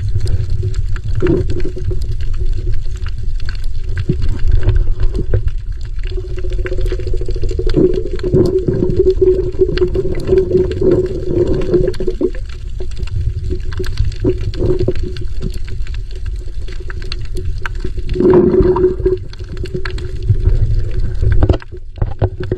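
Water sounds heard underwater: a low rushing rumble with a steady crackle of sharp clicks, and a droning tone that swells around the middle and again near the end.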